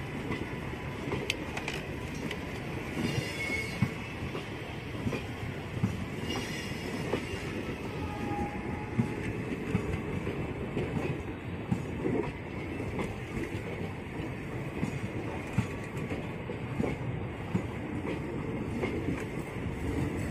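ICF passenger coaches rolling past close by as the train pulls out, wheels knocking over rail joints in a steady clatter, with now and then a short wheel squeal.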